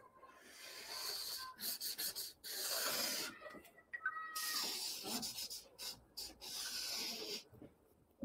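Black felt-tip marker drawing on a large paper pad: a run of scratchy strokes, some long and sweeping, some short, with brief breaks between them.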